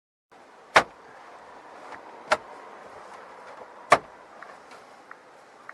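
Three sharp clicks about a second and a half apart over a low steady hiss, followed by a few fainter ticks.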